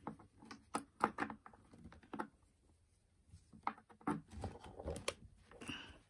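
Scattered light clicks and taps of a power cord's plug being handled and pushed into the socket on the back of a plastic mini fridge, with a short quiet gap about halfway through.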